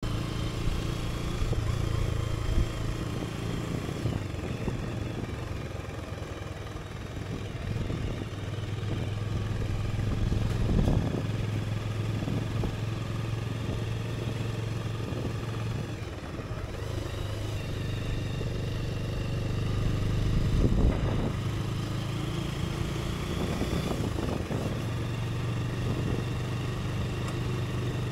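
Motorcycle engine running while riding, heard from the rider's seat. It holds a steady note, with tyre and wind noise, and dips and picks up again a few times along the way.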